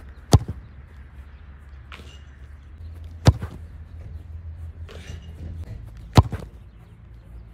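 A football kicked hard off artificial turf three times, about three seconds apart, each a sharp single thud. Fainter knocks come between the kicks, and a low rumble runs underneath.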